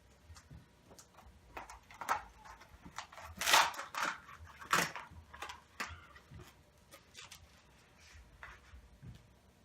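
Irregular clicks and knocks of hand tools and metal parts being handled while the handlebars are mounted. The two loudest knocks come about three and a half and five seconds in.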